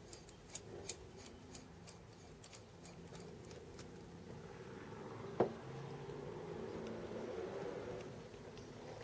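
Irregular light clicks and taps of metal parts and tools being handled, then a single knock about five seconds in, followed by soft rustling.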